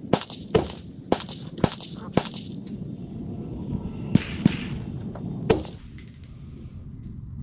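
5.56 mm AR-15 rifle with a 12.5-inch Criterion Core barrel firing a quick series of sharp shots, played back at triple speed. The shots stop about six seconds in.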